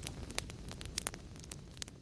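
Wood fire crackling: irregular sharp pops and snaps over a low steady rumble, slowly fading out.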